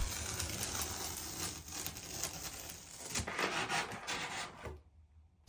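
Packaging being handled during an unboxing: irregular rubbing, scraping and rustling, cutting off suddenly near the end.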